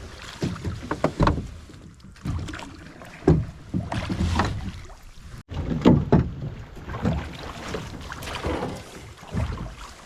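Irregular knocks, bumps and water noise from a drift boat on a river.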